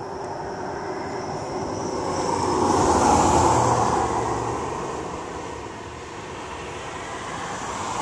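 Car passing on the road in front: tyre and engine noise swells to a peak about three seconds in and fades away. Near the end a second car approaches and rises again.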